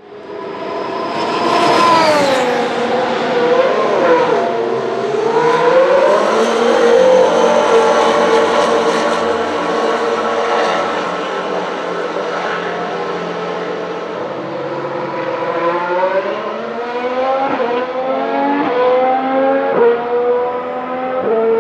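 2018 Formula 1 car's 1.6-litre turbocharged V6 hybrid engine running loud, its pitch falling and rising in the first few seconds and then holding fairly steady. From about sixteen seconds in it accelerates through the gears: several rises in pitch, each cut off by a sudden drop at an upshift.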